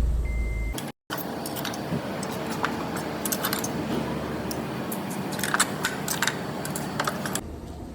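Light metallic clinks and jingles, many small taps scattered over several seconds, after a low rumble that cuts off abruptly about a second in.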